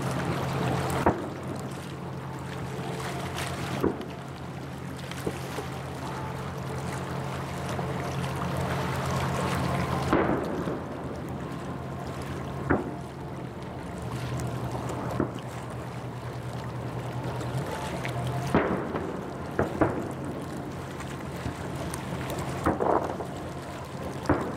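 Aerial fireworks shells bursting across the water, about eight sharp bangs at irregular intervals, over a steady low hum.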